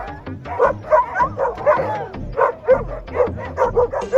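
Dog barking rapidly and repeatedly, about three short barks a second.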